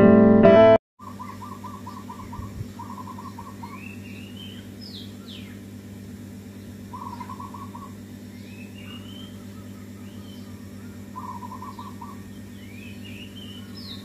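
Guitar music ends in the first second. Then birds call over a steady low hum: short trilled calls repeated several times, and higher rising chirps.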